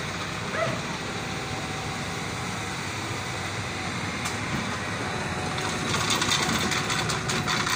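Tracked launch tractor's diesel engine running steadily as it tows a lifeboat on its carriage. From about six seconds in, a dense crackling, crunching noise grows louder as the tractor and carriage move.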